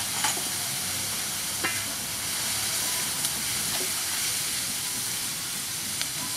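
Pig intestine frying in a wok, a steady hissing sizzle, with a few brief clicks as a wooden spatula stirs and knocks against the pan.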